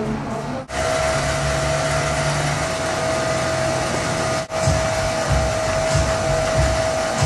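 Steady rushing noise with a steady mid-pitched hum. It cuts out abruptly for an instant under a second in and again about four and a half seconds in, and uneven low rumbling pulses join it after the second break.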